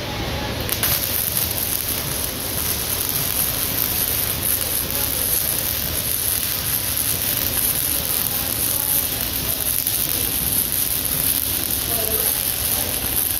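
Electric arc welding on the steel tubing of a hay ring frame: the arc starts about a second in and keeps up a steady, crackling hiss.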